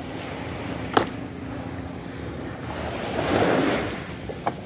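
Small waves washing onto the shore in a steady wash, with one surge that swells and fades about three seconds in. A single sharp knock comes about a second in.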